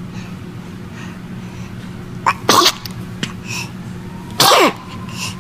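A baby sneezing twice, about two seconds apart: once a little past two seconds in and again about four and a half seconds in.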